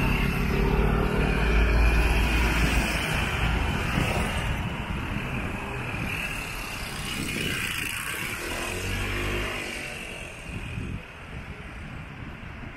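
Motor vehicles passing close on a rain-wet street, their engine rumble and tyre hiss loudest about two seconds in. A second vehicle passes around eight seconds, and the traffic eases off near the end.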